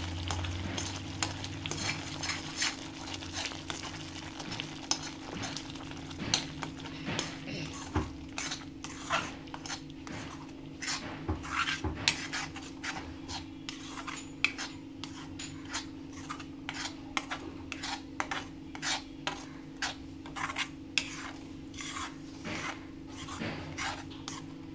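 A metal ladle stirs and scrapes thick masala gravy in a steel kadai, making repeated clinks and scrapes against the pan at roughly two a second. A steady low hum runs underneath.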